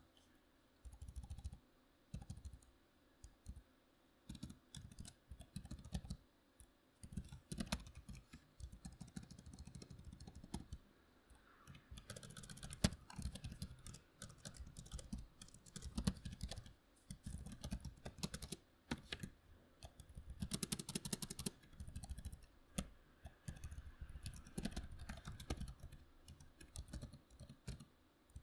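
Typing on a membrane keyboard in irregular bursts of keystrokes. The clicks are sparse and halting at first, then grow dense and near-continuous from about halfway through.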